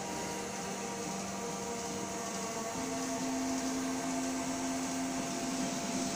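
Electric drive motors of a homemade HDPE plastic extruder and its roller puller running steadily: a hum with a faint whine over a hiss. About halfway through, the hum's pitch steps up a little.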